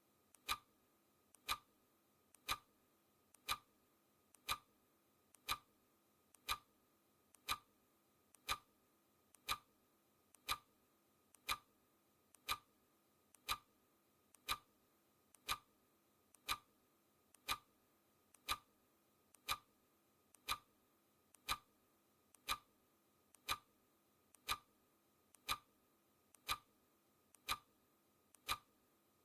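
Clock ticking sound effect for a countdown timer: one sharp tick each second, each with a faint softer click just before it.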